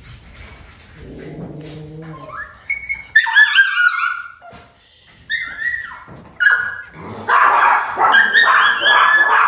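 Newborn Shih Tzu puppies crying and squealing, several at once, in short high cries that rise and fall in pitch. The cries start about two seconds in and are loudest and most crowded near the end.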